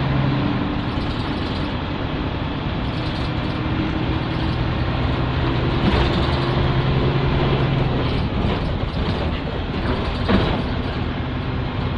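Nissan Diesel K-U31L city bus's PE6H diesel engine running under way, heard inside the cabin. The engine note climbs slowly as the bus pulls, then falls away about eight seconds in. A single sharp knock comes near the end.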